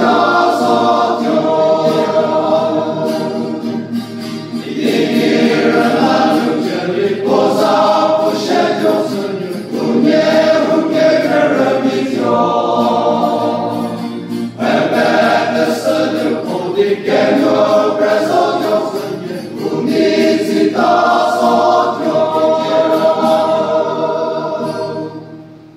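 Men's choir singing a hymn in long, held phrases with short breaks between them, fading away just before the end.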